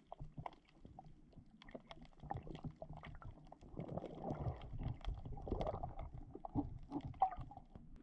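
Sea water surging over a rocky seabed, heard underwater: a muffled, low wash with many scattered clicks and crackles, swelling louder in the middle.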